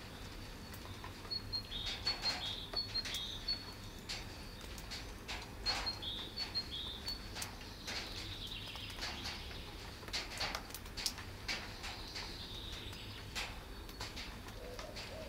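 A small bird chirping in quick series of short high notes, twice, over a steady low background rumble with scattered sharp clicks.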